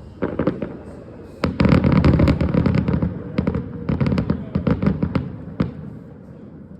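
Fireworks going off in a rapid volley of sharp bangs and crackles. The volley is densest about a second and a half in, then thins out and stops about a second before the end.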